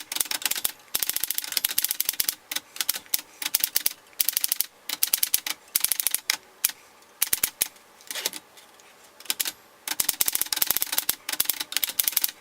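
Remington Portable No. 2 manual typewriter being typed on: quick runs of type bars striking the platen in bursts, with short breaks between them and a longer pause about eight seconds in.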